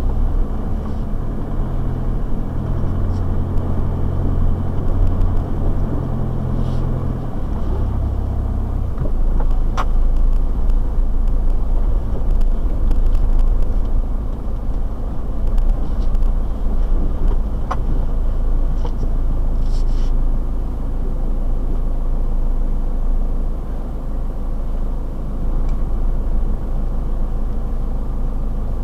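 Four-wheel-drive vehicle's engine and tyre rumble heard from inside the cab while driving slowly along a rough dirt track, with the engine note shifting about a quarter of the way in and a few light clicks and rattles.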